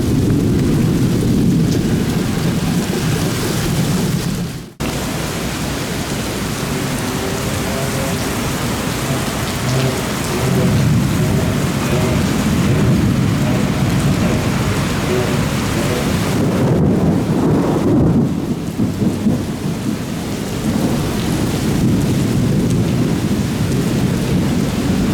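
Heavy rain falling steadily under a thunderstorm, with rolling thunder rumbling underneath; the sound cuts out for an instant about five seconds in.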